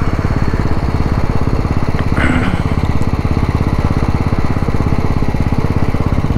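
Royal Enfield Classic's single-cylinder engine running at a steady pace under way, an even, rapid thumping beat.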